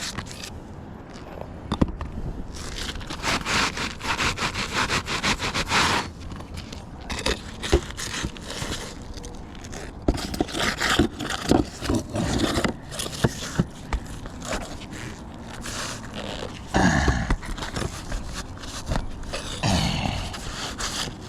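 Irregular scraping and shuffling on asphalt roof shingles, coming in uneven bursts with the odd knock.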